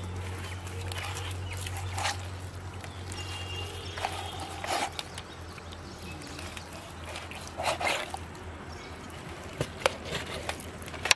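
Knife scoring a whole raw chicken over an aluminium plate, with a few scattered clicks and knocks from the blade and the plate, over a low steady hum.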